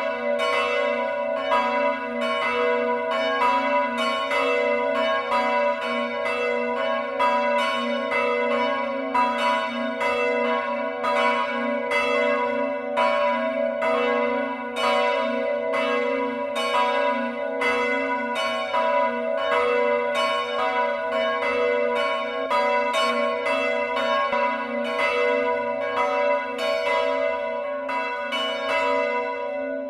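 Several church bells ringing together in a continuous peal, rung in mourning for the death of Queen Elizabeth II. Their strikes overlap at about two a second at several different pitches, each ringing on into the next.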